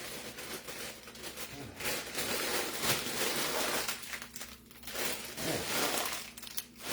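Plastic packaging crinkling as it is handled, in three stretches with short pauses between.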